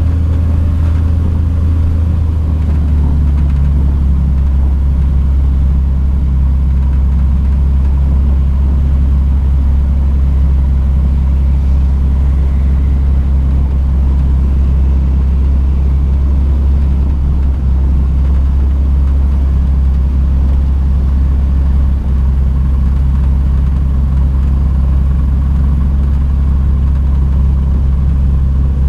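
Cessna Grand Caravan's single Pratt & Whitney PT6A turboprop engine and propeller running during taxi, a steady deep drone. Its tone shifts slightly about two to three seconds in, then holds.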